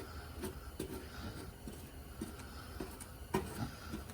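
Body filler being spread and smoothed on a car body panel with a spreader, in short irregular scraping strokes about twice a second, over a steady low hum.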